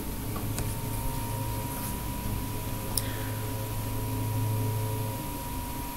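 Steady low electrical hum and hiss with a faint high tone, broken by a couple of sharp computer-keyboard clicks as a command is entered; the low hum stops about five seconds in.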